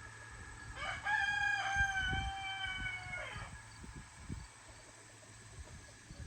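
A rooster crowing once, a single long call of about two and a half seconds that starts about a second in.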